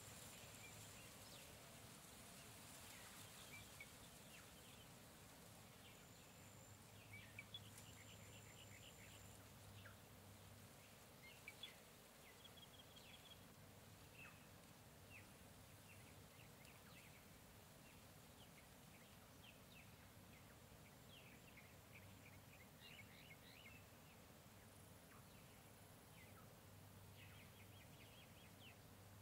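Faint jungle ambience: scattered short bird chirps over a steady background hiss, with now and then a thin, high, steady tone.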